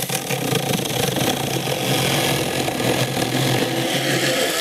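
Small cordless mini chainsaw with a brushed motor running steadily as its chain labours slowly through a thick, dry log, with a constant motor tone and chain chatter. Its slow going in the cut is the kind of stalling under load that the presenter says is common with cheap brushed-motor saws.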